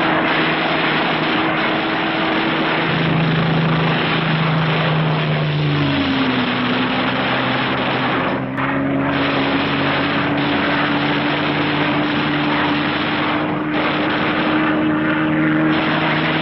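Aircraft piston engines running steadily under a noisy drone. Their pitch drops about six seconds in, then slowly climbs back.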